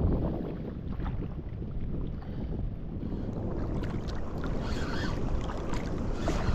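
Wind blowing across the microphone: a steady low rumbling rush, a little brighter from about halfway through.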